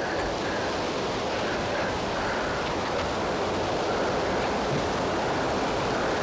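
Steady rushing wind noise, even and unbroken, with no distinct events.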